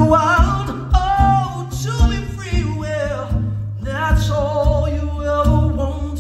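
Live male vocal with acoustic guitar: a man sings long held notes with vibrato over his own strummed acoustic guitar, recorded on a mobile phone.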